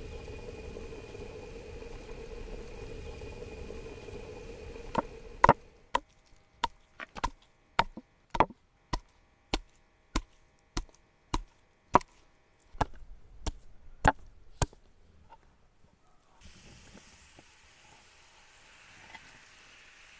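Knife chopping on a wooden cutting board: about sixteen sharp strokes at an even pace, roughly one every half-second, through the middle of the stretch. Before the strokes there are several seconds of steady hiss with a faint hum.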